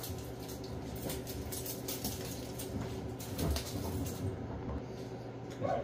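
Steady low hum of workshop background, with scattered light clicks, a knock about three and a half seconds in and a short squeak near the end.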